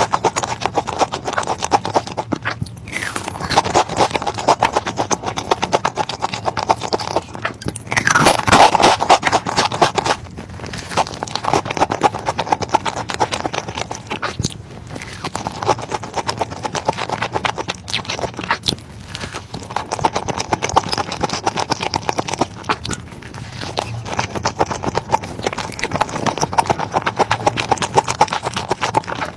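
Close-miked eating sounds: a person chewing and biting food, with a dense run of rapid mouth clicks and crackles, loudest about eight seconds in.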